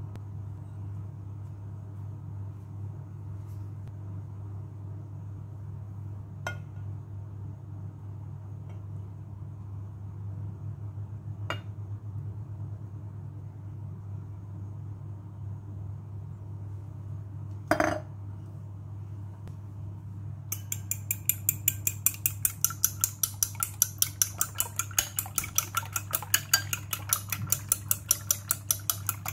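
Fork beating eggs in a bowl, rapid regular clinks about four strokes a second, starting about two-thirds of the way through. Before that, a few single clinks of glassware, one louder than the rest, over a steady low hum.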